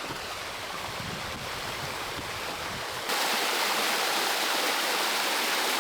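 A forest stream's running water makes a steady rush. About three seconds in, it jumps abruptly to a louder, brighter rush, as at a cut to a faster stretch or waterfall.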